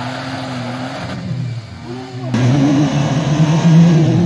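Toyota FJ Cruiser's 4.0-litre V6 revving under load as its wheels spin in deep snow, the truck stuck. The engine note sags about a second and a half in, then cuts abruptly to louder, higher, wavering revving.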